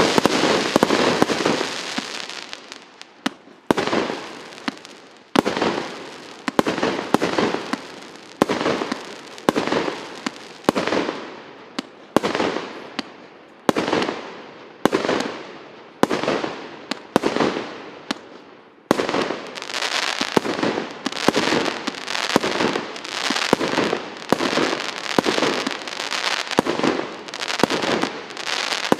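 A multi-shot consumer firework cake with 160 shots of 0.8 to 1.25 inch calibre, firing shot after shot. Each shot is a sharp bang trailing off into crackle, about one a second. About two-thirds of the way in the shots come faster and overlap.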